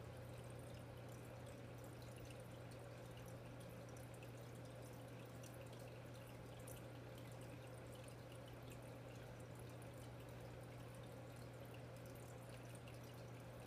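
Aquarium pump and filter running with a faint steady hum, and light dripping and trickling water.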